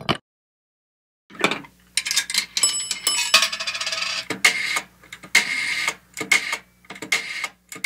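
A run of irregular mechanical clacks and clatter over a low steady hum, with a short bell-like ding about three seconds in; a single click comes right at the start.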